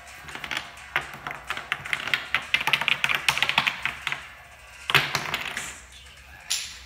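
A rapid run of sharp taps and clicks, densest in the first half, with a louder burst about five seconds in and a shorter one near the end.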